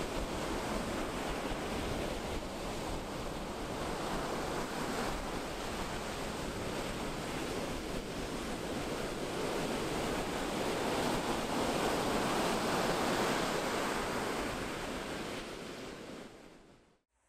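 Ocean surf: waves breaking and washing up a sandy beach, a steady rush of water that swells a little past the middle and then fades out near the end.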